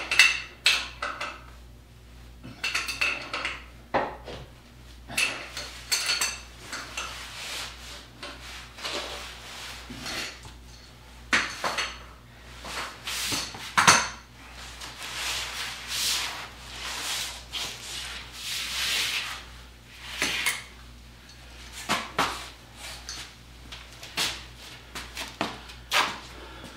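Irregular metallic clinks, knocks and scrapes of a wrench working the coarse screw-type leveling feet of a DoAll 14-inch surface grinder, over a low steady hum. The loudest knock comes about halfway through.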